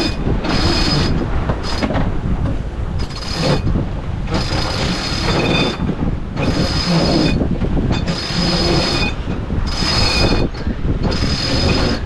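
A sailboat's line being hauled in with repeated pulls around a cockpit winch, the winch drum's pawls whirring through each pull. About eight pulls come a second or so apart, over a steady low rumble of wind and sea.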